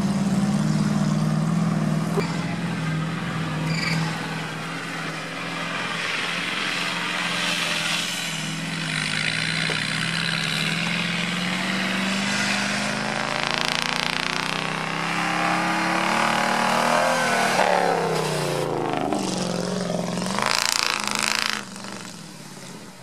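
Off-road vehicle engines running and revving, the pitch climbing through the middle, then dipping and climbing again. Near the end an army truck ploughs into a mud pond with a loud rush of splashing mud and water.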